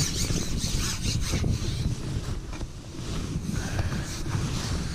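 Wind buffeting the microphone in an uneven low rumble, with rustling and light knocks as a carbon fishing pole is handled and slid out across its pole rest.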